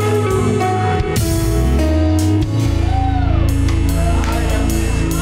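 Upbeat praise music from a band: a drum kit keeps a steady beat under held chords and a bass line that steps between notes.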